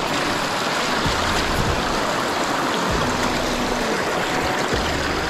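Shallow river water running and rippling over stones close to the microphone, a steady rushing.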